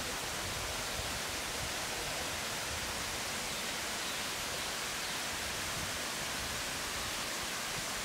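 A cascading waterfall at high rainy-season flow, giving off a steady, even rush of falling water.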